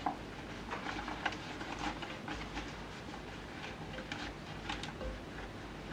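A large, stiff-stemmed leaf rustling in the hands as it is rolled and pushed down inside a glass vase. It comes as a run of short, irregular rustles and scrapes.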